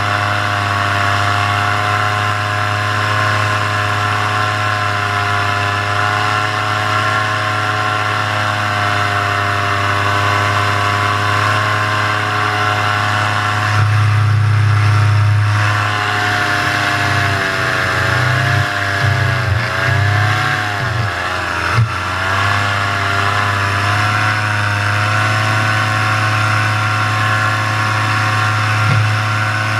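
Paramotor engine running at full throttle in flight, a steady drone at constant RPM. Its pitch and level waver for several seconds around the middle before settling back.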